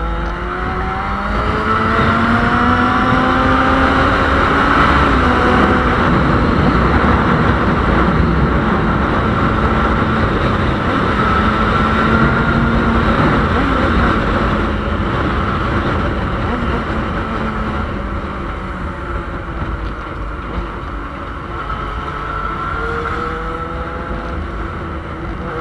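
Yamaha Fazer 600's inline-four engine pulling under way, its pitch rising in the first couple of seconds, then holding fairly steady, and climbing again near the end. Heavy wind rush on the microphone runs under it.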